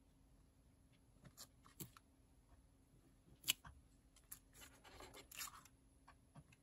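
Faint handling sounds of a small rubber stamp being pressed onto paper: a few light taps and clicks, the sharpest about halfway through, then brief rubbing and scraping.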